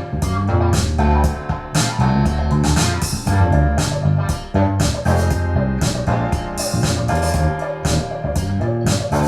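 Music with a steady drum beat over a bass line.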